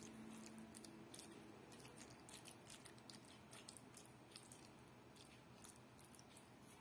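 Faint wet squelching and small irregular clicks as a metal spoon stirs and turns raw chicken skins in a plastic bowl.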